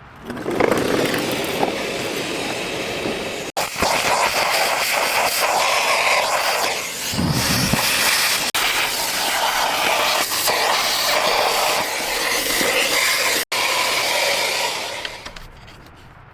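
A loud, steady hissing spray that starts about half a second in, drops out for an instant twice, and fades away near the end.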